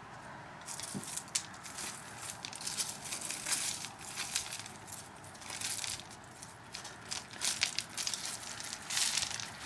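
Small landscape stones crunching and clicking as a hand rummages through a rock bed: irregular crackling scrapes that start about a second in and come and go.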